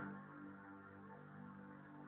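Quiet background music of held, steady tones, dropping in level right at the start.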